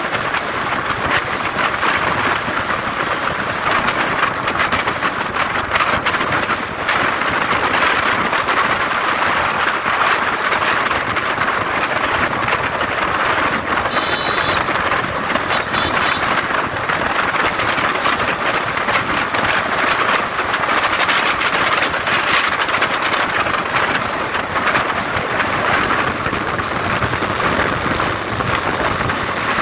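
Steady, loud rushing noise of wind and road while riding a bike along a road, with a brief high-pitched tone about fourteen seconds in.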